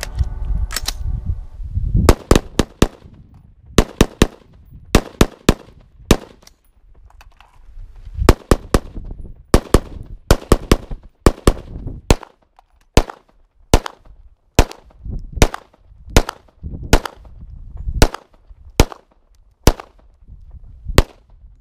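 Semi-automatic gunfire from several AR-15 rifles and a pistol: an irregular string of some thirty sharp, close shots starting about two seconds in, many in quick doubles and triples.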